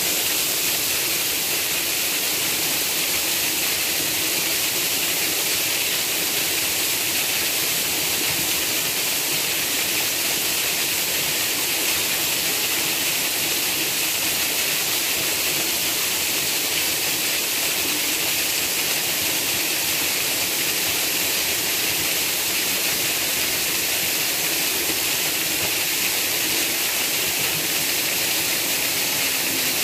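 Shallow stream rushing over rocks: a steady hiss of flowing water.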